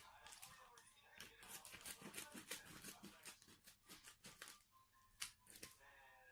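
Faint, irregular plastic clicks and scrapes of a cordless phone handset and its battery pack being handled during a battery swap.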